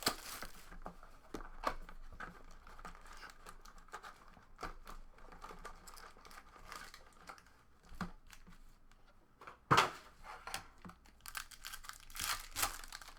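Wrappers of a box of Panini Prizm Collegiate trading card packs being torn open and crinkled, with irregular rustles and small clicks. A louder tear comes about ten seconds in, and a cluster of crinkling follows near the end.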